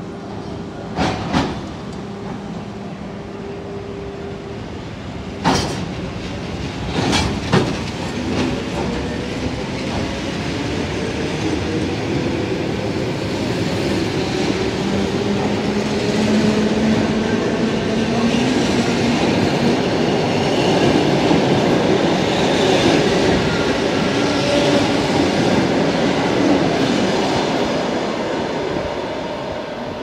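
ED4M electric multiple unit pulling out along the platform and gathering speed: a few sharp knocks in the first several seconds, then the running noise of wheels on rails and the motors builds, with tones rising in pitch, and fades as the last cars go by.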